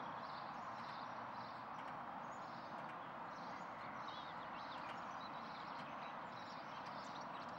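Quiet outdoor background: a steady, even hiss with faint, scattered bird chirps.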